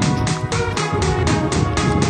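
Background music with a steady fast beat and a sliding synth melody.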